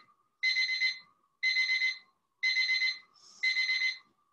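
Electronic alarm timer beeping, about one beep a second, each beep a rapid run of high pips. It is going off to signal the end of the timed activity.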